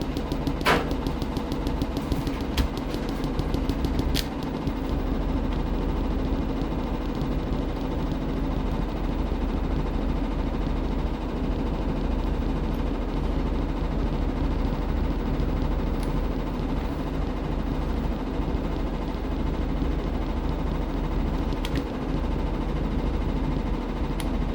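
Washing machine running with a steady motor hum and low rumble, with a few sharp clicks or knocks in the first four seconds.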